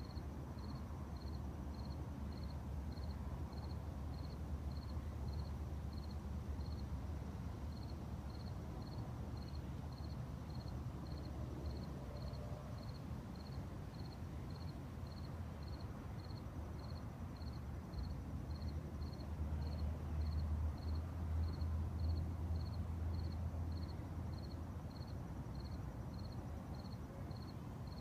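A cricket chirping steadily and evenly, about one and a half high chirps a second, over a constant low rumble that swells about twenty seconds in.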